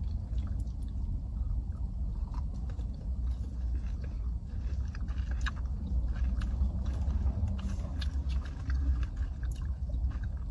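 Chewing and crunching of hard-shelled candied grapes, a scatter of short crackly clicks, over a steady low rumble.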